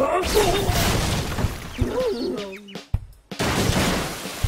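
Cartoon action soundtrack: music with hits and effects, under a character's snarling yell at the start. After a brief drop-out, a rushing gush of water starts about three and a half seconds in.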